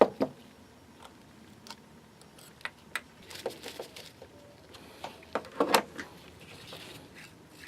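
Scattered light clicks and taps of a small retractable key-chain reel being handled and worked apart, with a few sharper ticks clustered about three and six seconds in.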